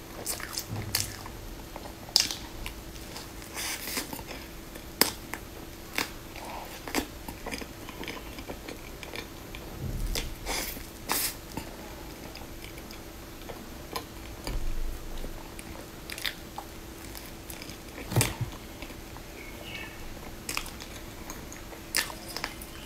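Close-miked eating: crisp crunching bites into a crumb-coated deep-fried food with a soft filling, then chewing, with sharp crunches every second or two. A faint steady hum runs underneath.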